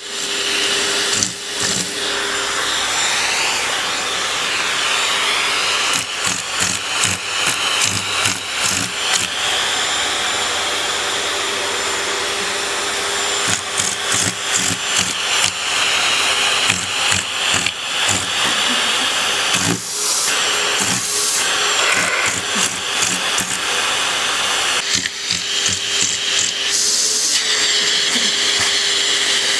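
Vacuum cleaner running steadily with a high whine that shifts in pitch now and then, overlaid by many short knocks and clatters.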